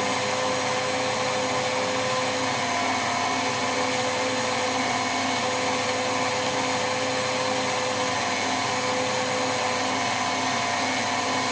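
KitchenAid Artisan stand mixer running at low speed, its wire whip beating sponge cake batter, with a steady motor hum that holds an even pitch.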